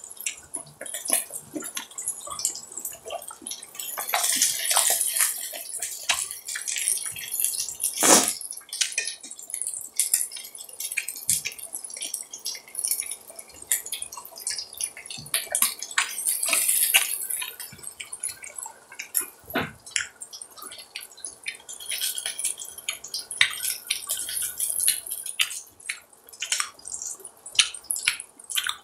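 Beef rib meat sizzling and crackling on a hot iron griddle: a dense run of small wet pops, swelling into louder hissing spells now and then. One sharp clack stands out about eight seconds in.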